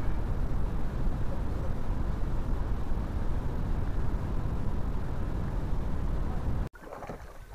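Steady, loud rushing noise, heaviest in the low end, with no distinct events; it cuts off suddenly about a second before the end.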